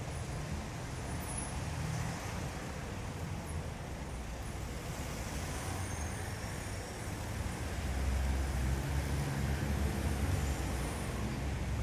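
Road traffic passing a bus stop: a steady low rumble of vehicle engines and tyres that swells about eight seconds in.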